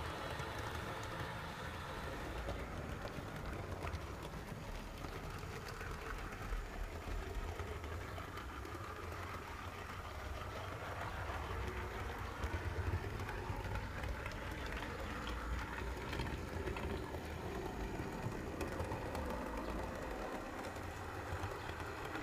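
HO-scale model train rolling steadily along the track: a continuous rumble of small metal wheels on the rails with a few faint clicks, heard from on board one of the wagons.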